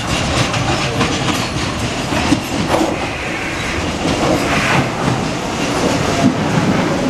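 Docklands Light Railway train running into the station close by, its wheels clattering over the points in repeated clicks and knocks.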